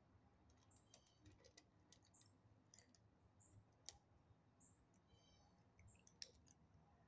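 Faint crunching and clicking of kittens chewing dry kibble from plastic bowls, a scatter of small sharp clicks. Short, faint high chirps repeat every second or so, with a brief trill about five seconds in.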